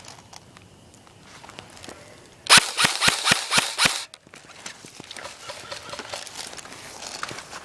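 Airsoft gun firing a rapid string of about six sharp shots, about four a second, a little over two seconds in. Fainter clicks and rustling come before and after.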